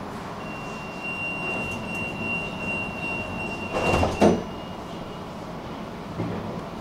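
Tram doors closing at a stop: a steady high warning tone sounds for about four seconds, then the doors shut with two loud thumps about four seconds in, over the tram's steady background noise.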